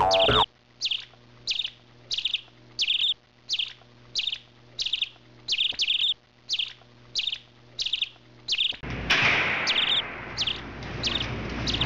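A small bird chirping: short, high chirps repeated about twice a second. About three-quarters of the way through, a steady hiss comes in under the chirps.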